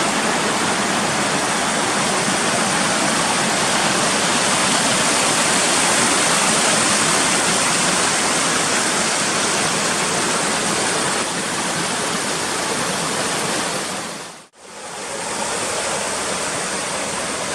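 Waterfall pouring: a steady, dense rush of falling water. It fades out briefly about 14 seconds in and comes back.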